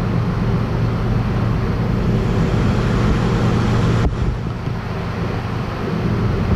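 Diesel engine of heavy farm machinery running steadily, a low hum under a broad rushing noise, with a short knock about four seconds in.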